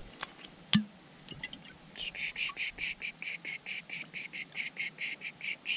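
A single sharp knock, then from about two seconds in an evenly paced run of short high chirps, about five a second, from a calling animal.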